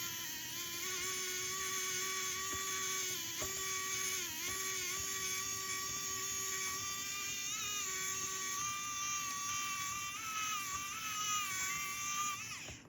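Small electric screwdriver motor running with a steady high whine, dipping briefly in pitch now and then as it meets load. Near the end its pitch falls and it stops.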